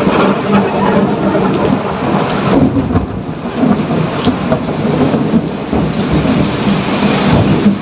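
Steady rain falling with thunder rumbling through it, the low rumble swelling and easing, and briefly dropping off about three seconds in.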